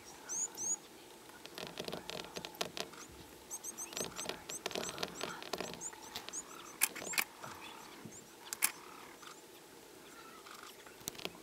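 A leopard cub's short, high squeaky calls: two near the start and a quick run of them a few seconds in. Scattered dry clicks and crackles sound between them.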